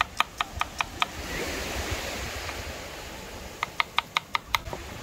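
Knife chopping shallots on a wooden cutting board, quick even strokes about five a second. The chopping stops for a couple of seconds while waves wash on the shore, then starts again near the end.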